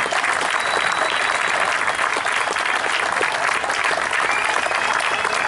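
Audience applauding steadily after a performance, a dense even clapping, with a thin high whistle held briefly about half a second in.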